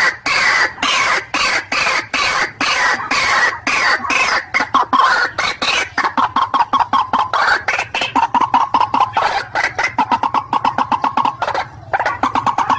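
White-breasted waterhen (ruak-ruak) calling: a fast, unbroken series of harsh, repeated croaking notes that settles into a quick even run, with a brief pause near the end.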